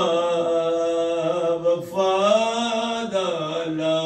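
A man chanting a mournful lament in long held notes, each drawn out for one to two seconds, with short breaks about two and three seconds in.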